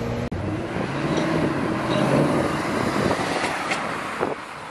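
A Mercedes-Benz SLS AMG's V8 running as the car rolls slowly past, mixed with street traffic noise. The sound changes abruptly shortly in and drops to quieter street sound near the end.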